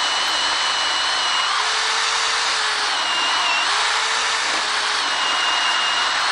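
18 V cordless drill running steadily under load, its 18 mm wood bit boring into the edge of a wooden door to start a mortice, with a slightly wavering whine over the cutting noise.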